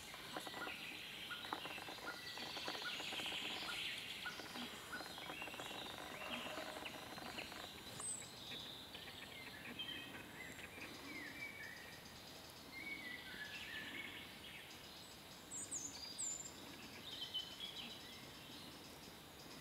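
Woodland birds singing and chirping, with several short high chirps, over a quiet forest background; scattered faint clicks and rustles in the first half.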